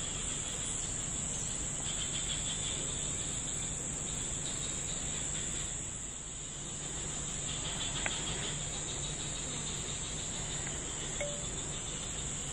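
Steady, high-pitched insect chorus, an unbroken shrill drone that holds through the whole stretch, over a faint even background hiss.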